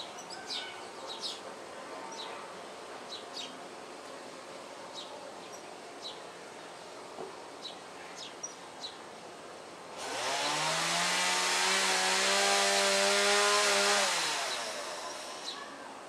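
Faint chirps of small birds; about ten seconds in, a power saw spins up with a rising whine, runs loud and steady for about four seconds, then winds down.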